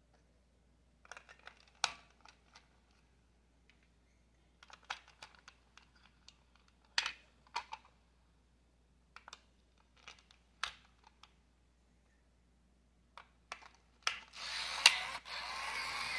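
AA batteries being pushed into the plastic battery compartment of a 1999 Tiger Electronics Furby Baby: scattered small clicks and clacks in a few groups. Near the end a steady whirring noise begins, with a sharp click in it.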